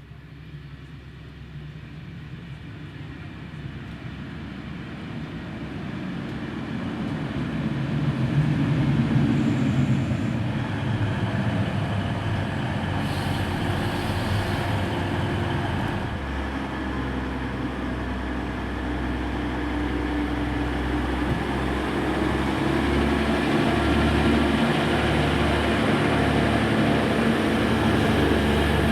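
Diesel train engine, growing louder over the first eight seconds, then running steadily with a shift in its low engine note about halfway through.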